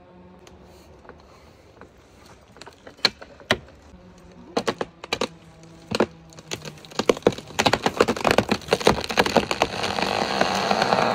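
A chainsaw idles while a large burned tree's hinge wood begins to give: a few separate sharp cracks, then from about seven seconds a dense, loudening run of cracking and popping fibres as the jacked tree starts to tip over.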